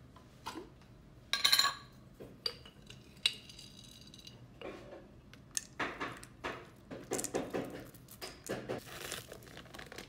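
Dishes and utensils clinking and knocking: one loud ringing clink a little over a second in, another ringing clink a couple of seconds later, then a run of irregular clatter.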